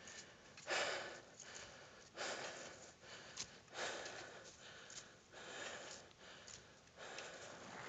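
Heavy breathing close to the microphone: about five long, noisy breaths, one every second and a half or so, from a climber out of breath with the effort of ascending steep snow at altitude.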